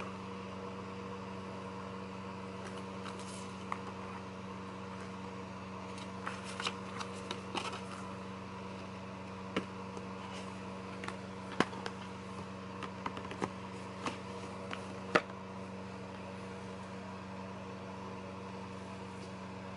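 Paper booklets and inserts handled in an open plastic Blu-ray case: scattered light rustles and sharp clicks, busiest in the middle and stopping a few seconds before the end, over a steady hum.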